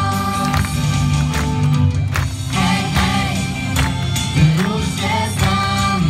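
A choir singing an upbeat Christian song live with a band, over a bass line and a regular drum beat.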